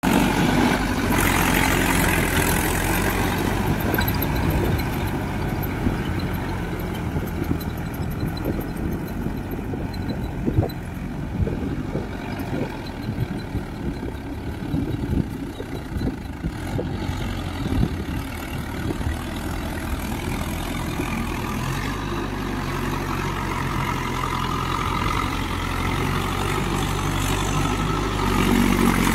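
Mahindra Yuvo Tech+ 4WD tractor's diesel engine running steadily as the tractor works a muddy field with a rotavator. It is loudest near the start and again near the end, and fainter in the middle.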